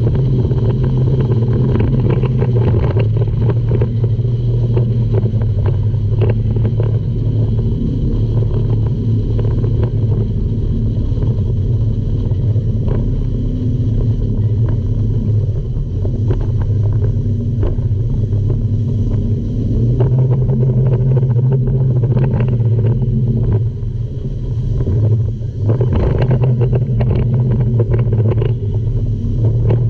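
Tour speedboat's engines running hard at speed, a loud steady low drone mixed with rushing water, spray and wind crackling on the microphone. The level dips briefly about three quarters of the way through.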